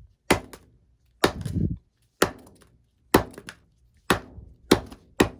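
Hammer striking plastic DirecTV access cards: seven sharp whacks about a second apart, coming a little quicker near the end.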